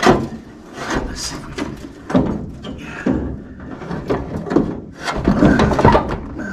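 A series of irregular knocks and clunks, with scraping and rustling between them, as the heater box assembly and surrounding parts are handled and worked into place under a car's dash.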